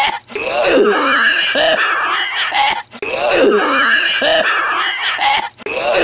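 A man's loud, hoarse hacking cough, a raspy smoker's cough, in bouts broken by short gaps about every three seconds.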